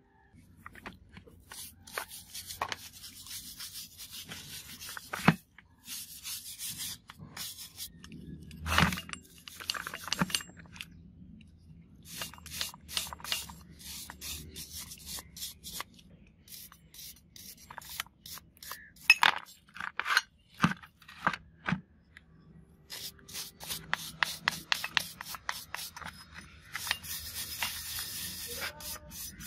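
Runs of quick scraping strokes as a wooden stick is rubbed over grimy, rusty hydraulic jack parts (the ram cylinder and base), with a few sharp knocks of wood on metal between the runs.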